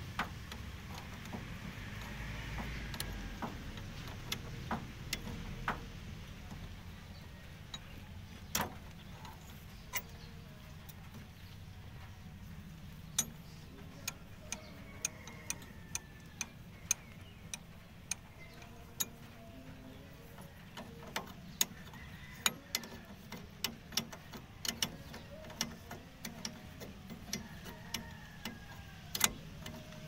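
Sharp metallic clicks and clinks of a spanner on the bolts of an air compressor's diaphragm valve housing, scattered at first and then coming about every half second from around the middle on. A low steady hum runs underneath.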